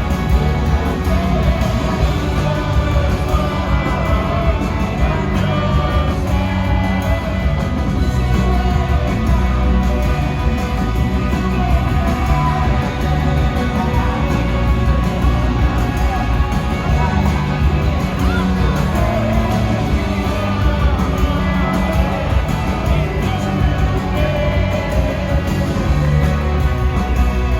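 Rock band playing live with a singer: drums, bass and guitars under a wavering lead vocal. The mix is heavy and boomy in the bass.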